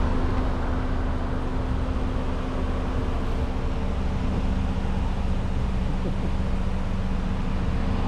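A steady mechanical hum over a low rumble, holding several even tones throughout, one of which fades out near the end.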